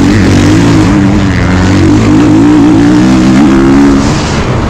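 2022 Kawasaki KX450's single-cylinder four-stroke engine running hard on the throttle during a motocross race, heard from the bike. Its pitch holds high with small rises and falls, then eases off briefly near the end.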